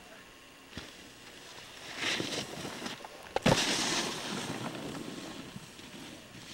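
Snowboard scraping and hissing across the snow as it carves past close by, loudest about three and a half seconds in, with a sharp knock just before.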